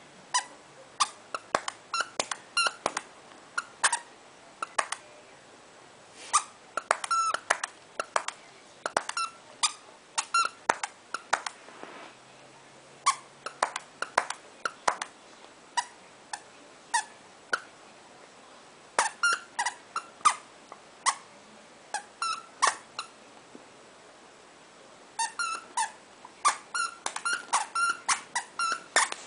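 A rubber squeaky dog toy squeaks again and again as a Pomeranian bites it. The squeaks are short and sharp, coming in quick runs with brief pauses between them.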